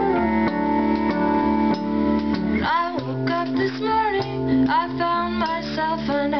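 Live band music: held chords ring for the first couple of seconds, then a woman starts singing about three seconds in, over low bass notes.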